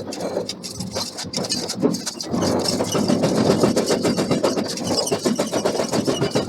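Heavy machinery running with a steady engine-like rumble and a crackle of fine clicks, growing louder about two seconds in.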